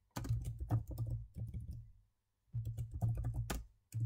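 Typing on a computer keyboard: two runs of quick keystrokes with a short pause about two seconds in.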